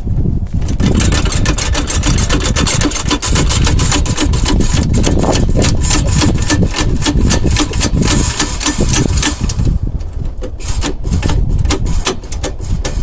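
Impact wrench hammering on wheel nuts: a rapid mechanical rattle for about nine seconds, then a few shorter bursts near the end.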